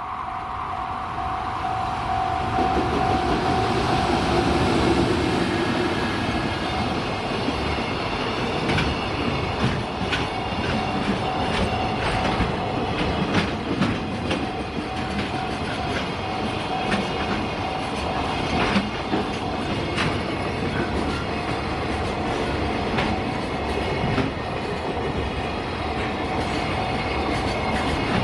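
JR Freight EF210 electric locomotive passing at the head of a container freight train, loudest a few seconds in, followed by the wagons' wheels clacking over rail joints. A level-crossing alarm rings steadily throughout.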